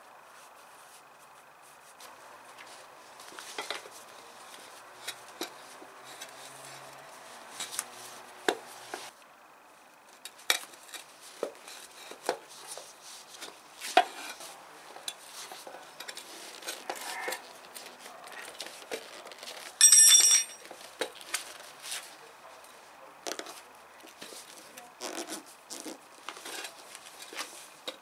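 Rubber wheelbarrow tire being worked by hand onto its soaped steel rim: scattered knocks, scrapes and rubbing of rubber against metal, with one loud, short metallic clank about two-thirds of the way through.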